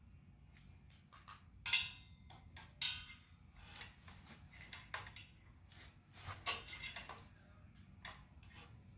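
Irregular metallic clicks and clinks of hand work on a ceiling fan's blade screws and brackets, with the two sharpest knocks a little under two and three seconds in.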